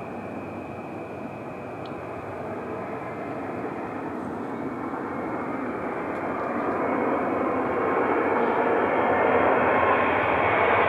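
Jet airliner's engines running, a steady rushing noise that grows louder through the whole stretch as the aircraft comes closer.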